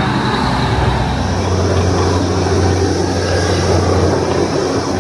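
Darjeeling toy train running: a steady loud rumble of the moving train, with a low engine drone that comes in about a second and a half in.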